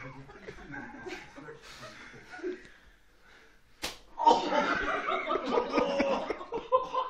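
A single sharp snap of an elastic band on bare skin, followed at once by loud laughter and yelling.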